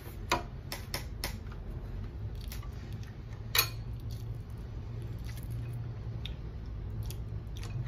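Close-up eating sounds: lip smacks and clicks while chewing, with a few sharp clicks in the first second and a half and a louder one about three and a half seconds in. A steady low hum runs underneath.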